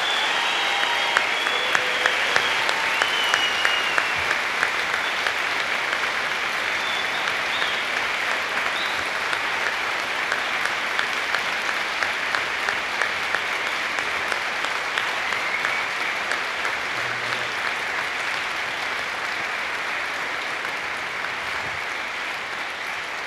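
Large audience applauding, dense clapping with single sharp claps standing out about two or three times a second and a few whoops in the first few seconds. The applause slowly dies down.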